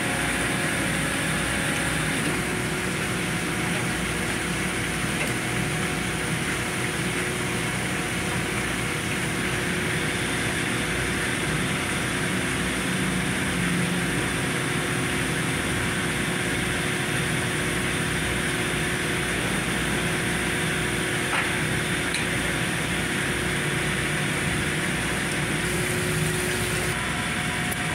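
Steady drone of running machinery with a few constant hum tones, unchanging throughout.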